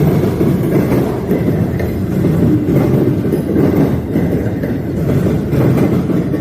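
Freight train rolling past, with a steady, loud rumble of railcar wheels on the rails.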